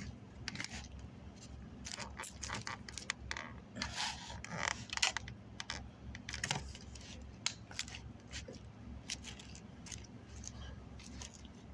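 Close-up eating sounds: chewing and lip smacking, a dense run of small irregular clicks and crackles.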